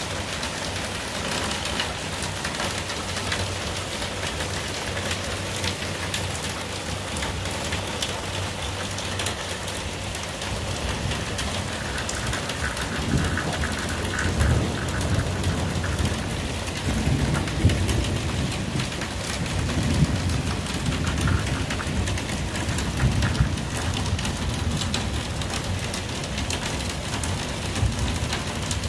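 Heavy rain pouring steadily in a thunderstorm, with thunder rumbling low through the second half.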